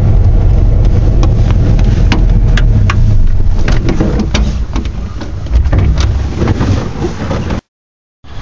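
Subaru 360 truck's small two-stroke twin-cylinder engine running at a standstill, heard from inside the cab as a loud low rumble that eases about four seconds in. Sharp clicks and knocks run through it as the camera is handled.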